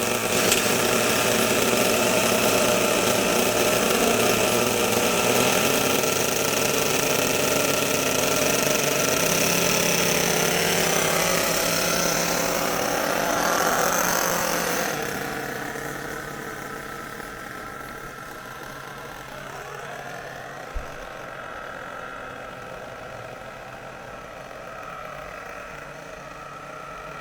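Small glow-fuel nitro engines of an RC truck running steadily. Around halfway through the sound drops sharply in level and goes on more quietly, with a short click about three-quarters of the way in.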